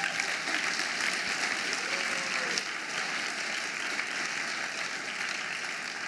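Audience applauding: a steady wash of clapping from a large seated crowd.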